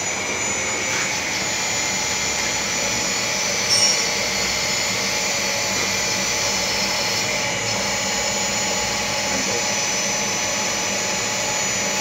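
Takamaz X12 CNC lathe running its automatic turning program, the spindle spinning the workpiece: a steady mechanical whine of several high tones over an even machine noise. A brief, louder squeal about four seconds in.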